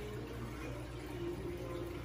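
Steady trickle of water circulating through a large aquarium's filter, over a low steady hum.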